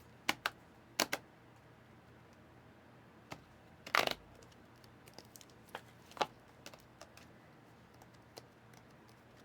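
Scattered clicks of computer keyboard keys and a mouse, a few separate taps rather than steady typing, the loudest about four seconds in.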